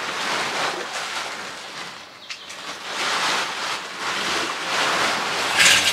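A large black plastic sheet rustling and crinkling as it is gathered up and folded, in swelling waves of hiss, with a sharper crackle near the end.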